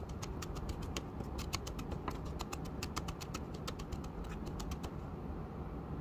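Chef's knife mincing red chili on a wooden cutting board: rapid, even chopping taps of the blade on the board, stopping near the end.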